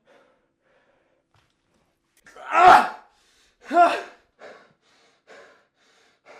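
A person gasping loudly twice, about two and a half and four seconds in, followed by quieter short breaths.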